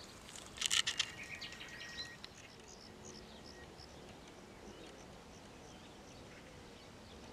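Faint small birds chirping here and there over a quiet background hiss. Just under a second in there is a brief burst of crackling clicks close to the microphone, followed by a thin held whistle for about two seconds.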